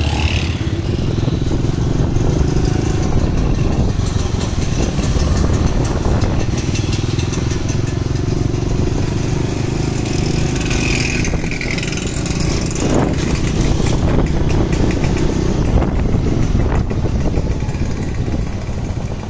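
Motorcycle engine running steadily at low speed, heard from on the moving bike as a continuous low rumble.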